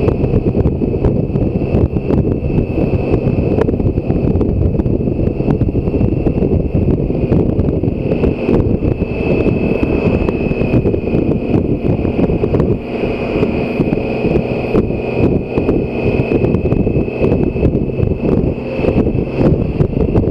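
Road-speed wind buffeting a motorcycle-mounted microphone, with the BMW K1600 GTL's inline-six engine running steadily underneath while cruising. A steady high-pitched whine sits above the wind throughout.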